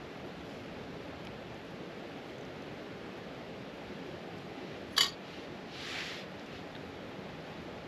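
Steady rushing background noise, with one sharp click of a small plastic container being opened about five seconds in, followed by a brief soft rustle.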